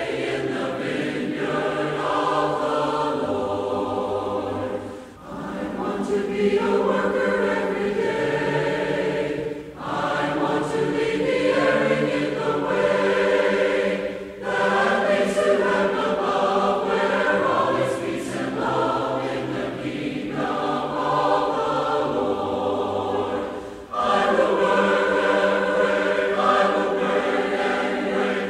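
Choir singing as background music, in long sustained phrases with brief pauses between them.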